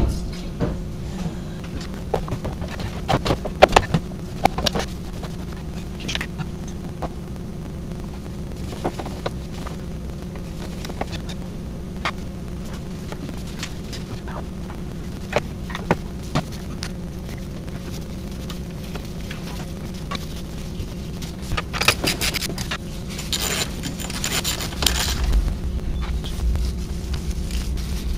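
BMW N62 V8 engine idling steadily after being restarted following a valve cover gasket replacement. Scattered clicks and scrapes from hands handling cable clamps in the engine bay sound over it.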